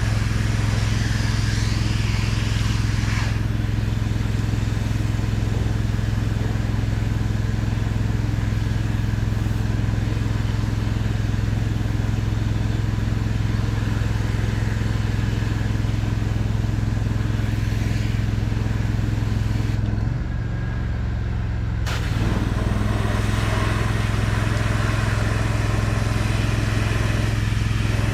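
Engine-driven pressure washer running steadily, its engine holding a constant hum under a hiss of spraying water. The hiss stops for about two seconds past the middle, then resumes.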